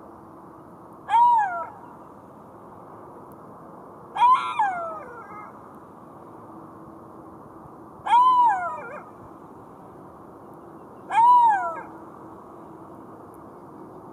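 Golden jackal calling: four short cries, each rising and then falling in pitch and lasting about half a second, spaced three to four seconds apart. The second call trails off in a longer falling tail. A steady low hiss runs underneath.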